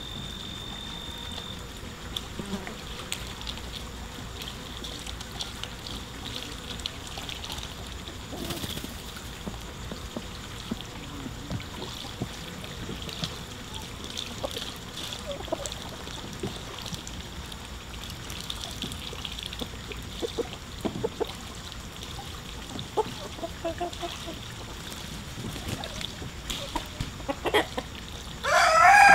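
A flock of hens foraging in bare dirt, with scattered small ticks of pecking and scratching and a few soft clucks. Near the end a rooster starts a loud crow that falls in pitch.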